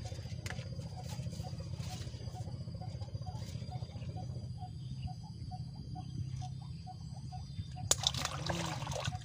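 Outdoor ambience: a soft note repeats about twice a second over a steady low hum. A short, loud burst of noise comes about eight seconds in.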